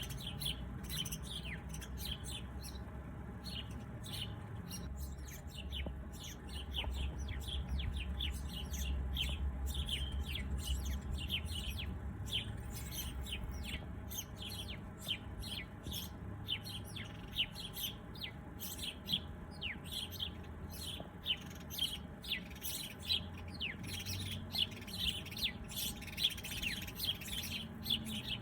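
Many small birds chirping and twittering together, with rapid short high chirps, busier in the second half, over a low steady background rumble.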